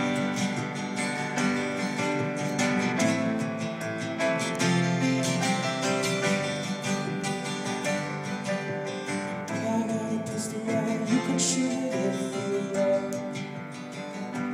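Acoustic guitar strummed in a steady rhythm, the instrumental opening of a folk-pop song before the vocals come in.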